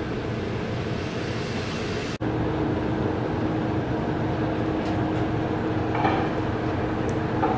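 Steady low rumble of a tugboat's engines working alongside a crane barge. After a brief break about two seconds in, a steady hum joins it.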